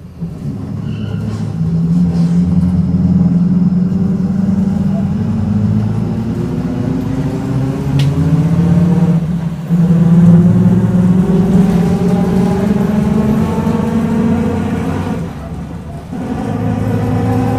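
Mercedes-Benz OF-1722M city bus's diesel engine and drivetrain pulling under acceleration, heard from inside the bus, with the differential growling. The pitch climbs steadily, drops briefly about halfway through, climbs again, then dips and recovers near the end.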